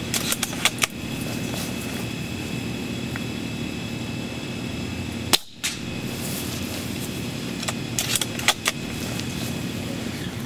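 Airsoft spring bolt-action sniper rifle being shot and cycled: a quick cluster of sharp snaps and clicks just after the start, and another about eight seconds in, over steady background noise. There is a brief dropout midway.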